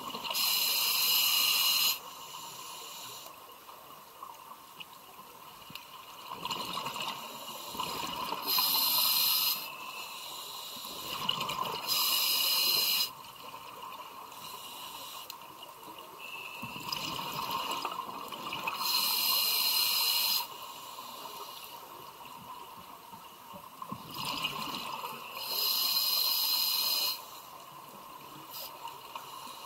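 A scuba diver breathing underwater through an open-circuit regulator. Five loud rushes of exhaled bubbles come several seconds apart, with quieter inhalation hiss from the regulator between them.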